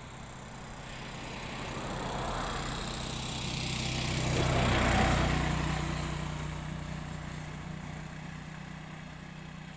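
A motor vehicle's engine passing by: it grows louder to a peak about halfway through, then fades away.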